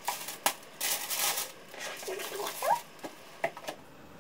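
White tissue packing paper rustling and crinkling as it is handled, with a few light knocks.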